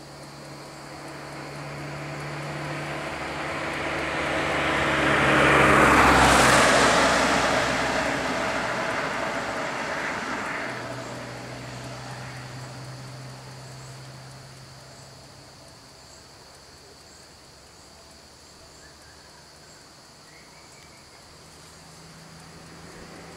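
A motor vehicle passing by: its noise builds slowly to a peak about six seconds in, then fades away, leaving a low engine hum that carries on faintly.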